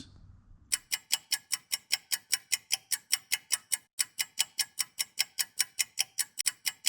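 Fast, evenly spaced ticking of a clock sound effect, about six or seven ticks a second, starting about a second in.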